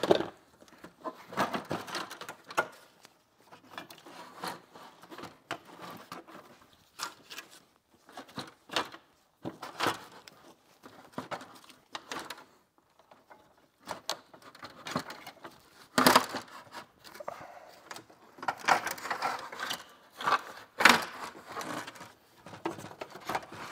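Irregular plastic clicks, knocks and rustling as an electric radiator cooling fan and its plastic shroud are unclipped and worked up out of the engine bay. Two sharper knocks stand out, about two-thirds through and near the end.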